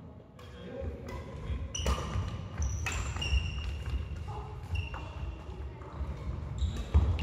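Badminton rally: sharp racket strikes on the shuttlecock, a few seconds apart, and court shoes squeaking on the wooden floor.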